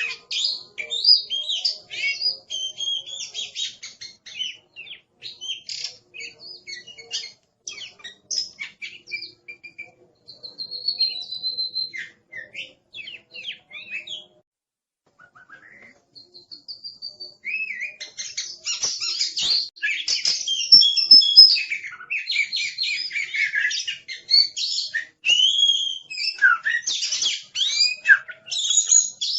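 Oriental magpie-robin (kacer) singing a fast, varied run of short whistled and gliding notes. It thins to a brief pause about halfway through, then comes back louder and denser.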